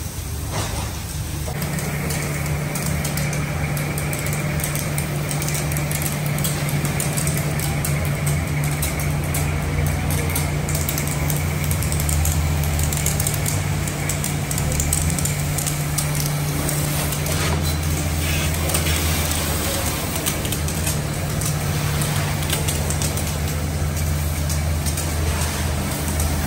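Pressure washer running: a steady motor hum with a thin steady whine joining about a second and a half in, over the hiss of the water jet spraying onto a car's hood and body.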